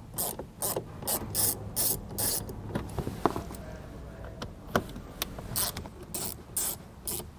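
Ratcheting screwdriver with a T15 Torx bit backing screws out of a plastic dash panel. Short bursts of ratchet clicks come on each back-stroke, two or three a second at first, then more spaced out.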